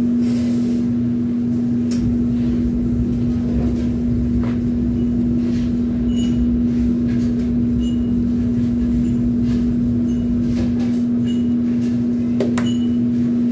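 Steady mechanical hum of pizzeria kitchen equipment: one low, unbroken tone over a constant rumble. Scattered light knocks and clicks of containers and utensils sound through it.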